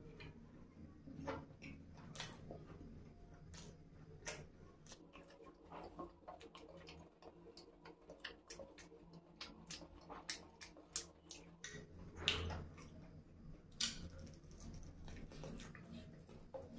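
Close-miked chewing of sauce-coated chicken lollipops: a faint, irregular run of small wet mouth clicks and smacks, with a few louder chomps.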